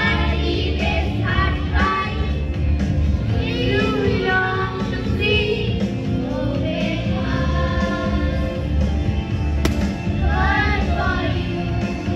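A children's choir singing a song in unison over instrumental accompaniment.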